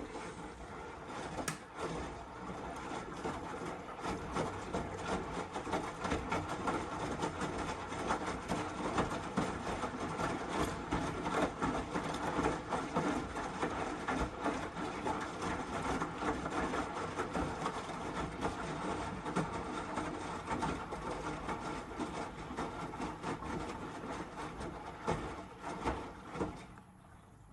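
Miele W1 washing machine running: a steady mechanical whir with a dense, continuous rattle, cutting off about a second before the end.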